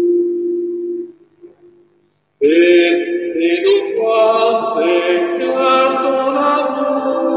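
A held instrumental note fades out about a second in; after a short silence a man's voice starts singing the responsorial psalm in a chanting style, with sustained tones beneath it.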